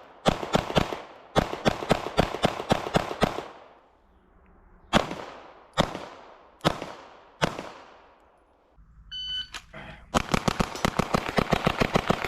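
Semi-automatic gunfire in quick strings: a few shots, a rapid run of about nine, four slower single shots about a second apart, then a short beep followed by a long fast string of shots near the end.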